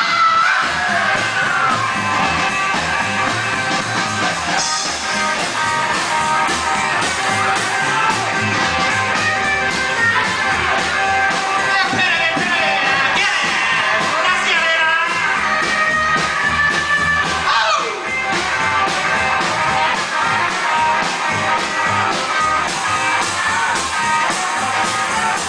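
A rock and roll band playing, with a steady beat.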